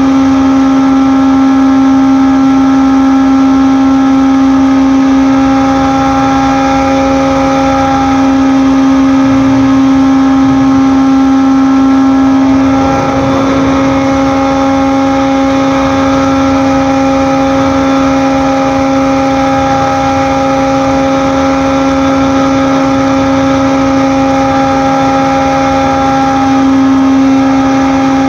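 Steady, loud drone of a ship's running machinery, one constant pitched hum with its overtones that never changes speed.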